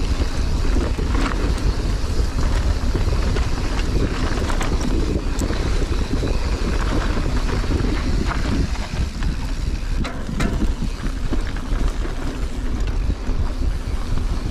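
Wind rumbling heavily on the camera microphone while riding a mountain bike downhill on a dirt trail, with scattered clicks and rattles from the bike over rough ground.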